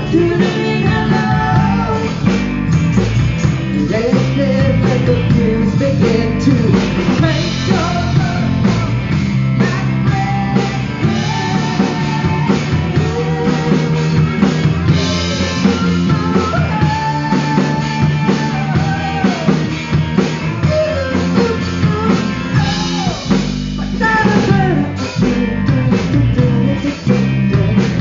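Live rock band playing: electric guitar, bass guitar and drum kit, with a wavering melody line on top.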